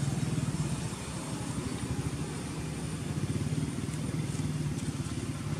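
A small engine running steadily at idle, with a fast even pulse.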